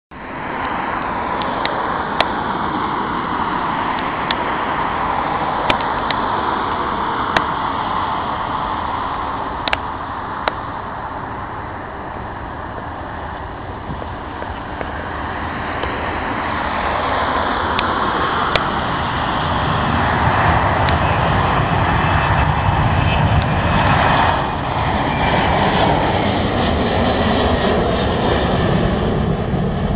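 Twin-engine jet airliner's engines heard as a steady broad noise that swells louder and deeper in the second half as the aircraft passes close. A few short sharp clicks stand out in the first part.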